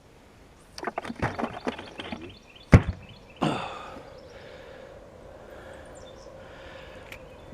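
Handling noise in a fishing boat: a quick run of clicks and knocks, then one hard thunk, a second knock about half a second later, and a steady hum after it.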